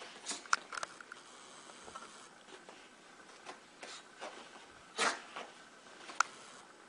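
A small pet rolling and wriggling on its back on carpet: scattered scuffing and rubbing of fur on the carpet, the loudest a brief rustle about five seconds in, with a sharp click a little after six seconds.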